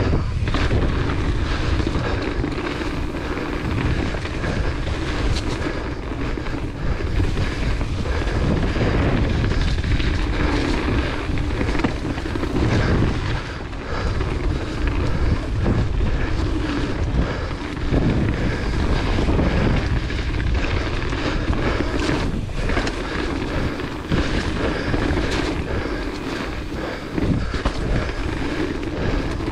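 Wind rushing over the action-camera microphone and tyres rumbling on a wet dirt trail as a hardtail mountain bike descends at speed, with frequent knocks and rattles from the bike over roots and rocks.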